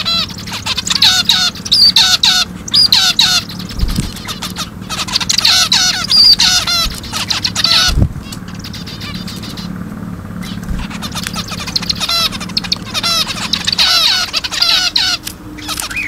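Several zebra finches calling: quick flurries of short, nasal, beeping calls that overlap one another. They ease off into a quieter lull midway, then pick up again.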